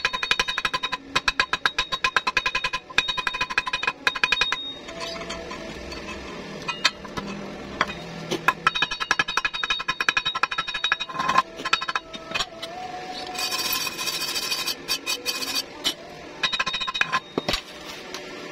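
Wire-feed (MIG) welding arc crackling in three short bursts, stitch-welding thin 0.9 mm galvanized tube with pauses between the stitches.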